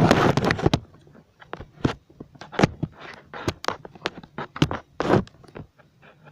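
Handling noise of the camera being moved and wedged in place: a rustle at the start, then a run of sharp clicks and knocks, a few louder than the rest.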